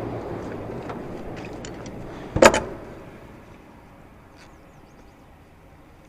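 A single sharp knock about two and a half seconds in, with a few faint clicks around it, over a steady hiss that fades away.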